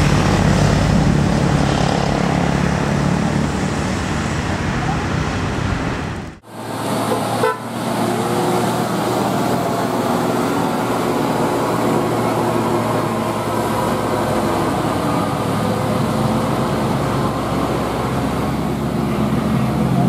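Basuri "telolet" multi-tone bus horn playing its wavering tune over running bus engines and passing traffic. The sound drops out briefly about six seconds in, then the horn tune and engines resume.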